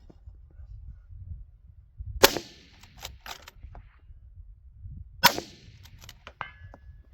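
Two suppressed rifle shots about three seconds apart, from a 6mm Dasher rifle fitted with a JK Armament suppressor shortened to about 4¼ inches. Smaller metallic clicks follow each shot.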